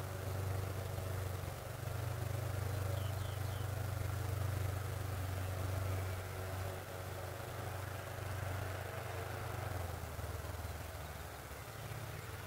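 Steady low engine hum, like distant road traffic, carried across open country, with a few faint high chirps about three seconds in.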